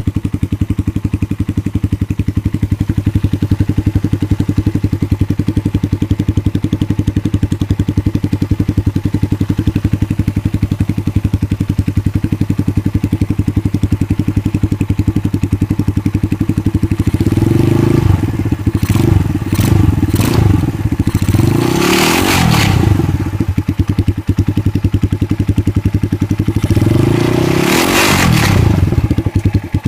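Kikker 200cc single-cylinder motorcycle engine idling steadily with a bad rattle that the owner cannot trace. From about two-thirds in the throttle is blipped several times, with the engine revving up and dropping back to idle, then revved once more near the end.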